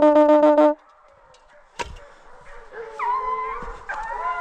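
Hunting horn sounding a rapid run of short blasts on one note, stopping within the first second. A sharp knock follows near two seconds in, then hunting dogs start baying with long, wavering howls.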